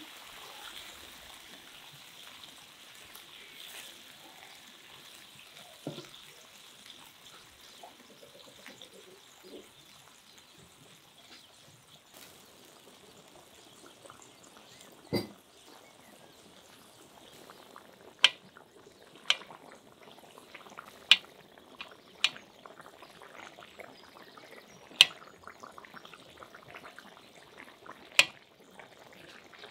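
Water poured through a skimmer onto rice in a cast-iron cauldron, splashing for the first few seconds. From about eighteen seconds in come sharp knocks every second or two, as a utensil handle is jabbed down through the rice against the cauldron's bottom.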